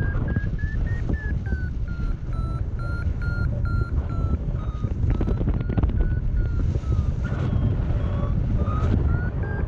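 Paragliding variometer beeping about three to four times a second, its pitch sagging through the middle and rising again near the end, over heavy wind rush on the microphone. Unbroken beeping of this kind is the vario's climb signal: the glider is going up in lift.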